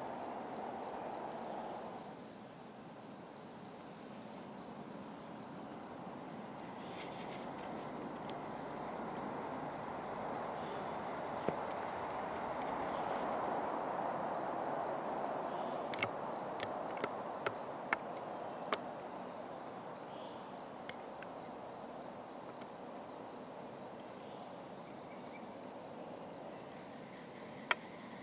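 Insects (crickets) calling: a steady high-pitched drone with a faster pulsing chirp of about four pulses a second beneath it. A soft rushing swells and fades midway, and a few sharp clicks come in a cluster past the middle and again near the end.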